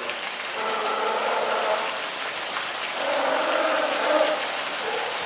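Steady rushing of water in a polar bear's pool.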